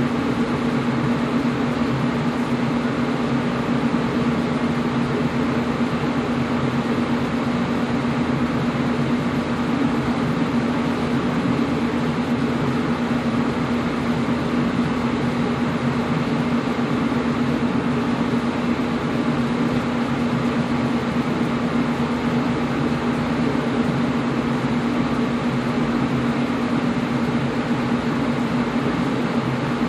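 Air conditioner running steadily: an even rushing of air with a constant low hum from the unit's motor.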